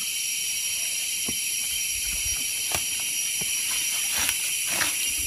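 A steady, high, hissing drone of forest insects, holding one thin high tone. A few faint wooden knocks from timber being handled sound through it.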